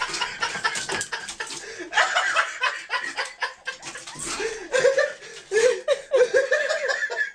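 Person laughing hard in breathy bouts, with a run of quick rhythmic 'ha-ha' pulses in the second half.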